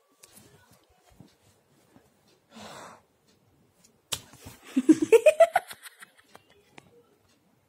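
A short burst of stifled giggling about four seconds in: a quick run of laugh pulses climbing in pitch, the loudest sound here. Before it, faint rustles and a brief hiss.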